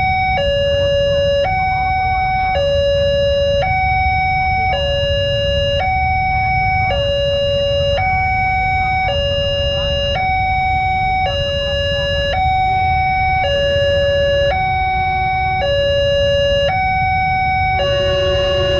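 Railway level-crossing warning alarm sounding: an electronic signal that switches between a lower and a higher tone about once a second, over a low rumble of traffic. Another, lower tone joins briefly near the end.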